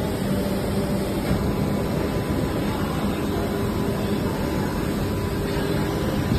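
Injection moulding machine running with a pipe fitting mould, a steady mechanical drone with a low hum.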